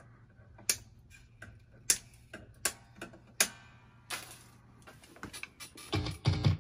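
Wire cutters snipping off the excess ends of new electric guitar strings at the headstock: a series of sharp snips, roughly one a second, some followed by a brief metallic ring. Near the end, a few low thumps.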